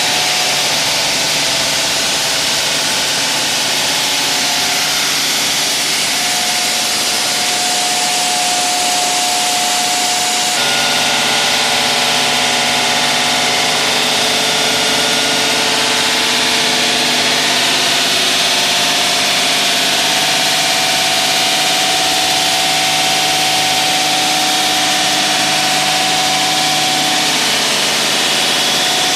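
Diamond wall saw running and cutting concrete: a loud, steady machine whine with several held tones over a broad hiss. The tones shift suddenly about ten seconds in.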